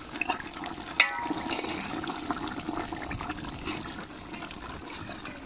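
Thick tamarind curry (vatha kuzhambu) bubbling at the boil in a pot, with a sharp click about a second in.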